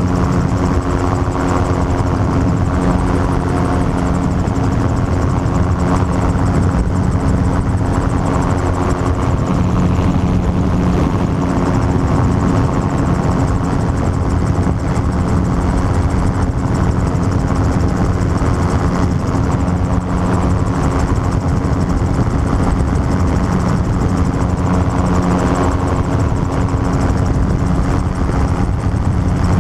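Gyrocopter's engine and pusher propeller running steadily in level flight, a constant drone heard from the open cockpit.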